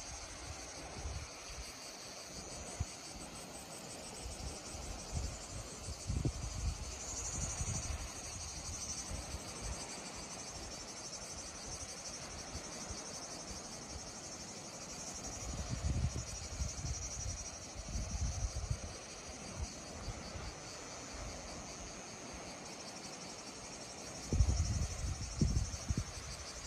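Summer insects chirring in a steady, finely pulsing high drone, with low rumbles that come and go several times.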